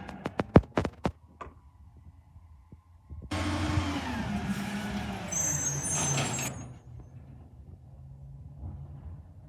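Garbage truck at work: a quick run of sharp knocks, then about three seconds of loud engine and machinery noise whose pitch falls, with a brief high squeal, before it drops back to a low idle.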